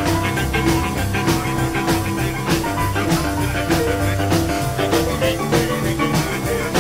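Upbeat jump-blues boogie music with drums, bass and guitar or piano, playing an instrumental stretch with no vocals.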